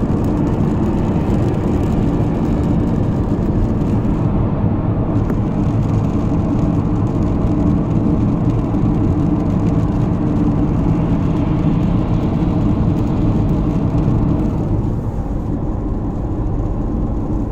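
Skoda car on the move, a steady low hum from the front of the car over the road and engine noise, easing a little near the end. The owner cannot locate the hum; it starts from about 15 km/h and is clearest at around 80 km/h.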